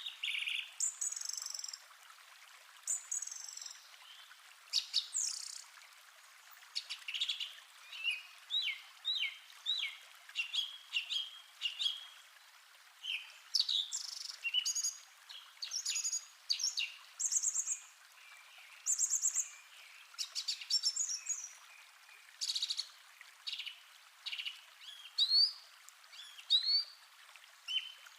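Forest soundscape of many small songbirds chirping and calling in quick short notes, over a faint steady hiss of running stream water.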